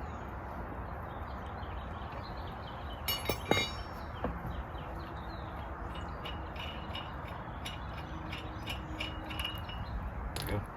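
Metal clinking, loudest in a short cluster about three seconds in with another clink a second later, then lighter scattered ticks over a steady low background.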